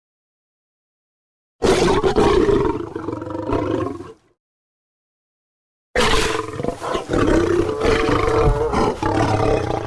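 Two lion roar sound effects, each cutting in abruptly out of dead silence. The first is a deep growling roar of about two and a half seconds; about two seconds later a longer one begins and runs on past the end.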